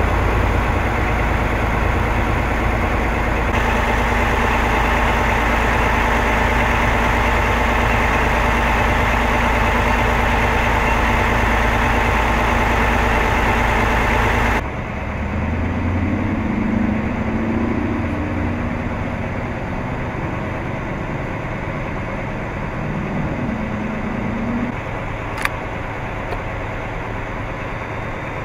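A heavy engine idling steadily and loudly. About halfway through, the sound cuts to a quieter idling hum with a few short faint pitched sounds over it and one sharp click near the end.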